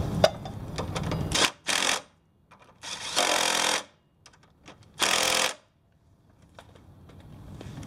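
Ridgid cordless impact driver hammering a bolt on a scooter's front wheel in three short bursts, the middle one the longest, with a click just before.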